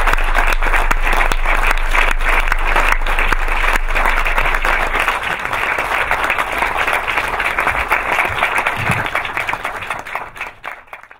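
Audience applauding, a dense steady clapping that thins and fades away over the last few seconds before stopping.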